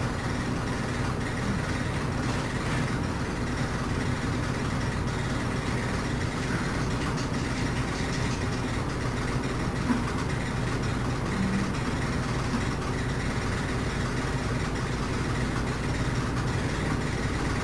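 Steady low mechanical hum of a running motor or engine, with a single light knock about ten seconds in.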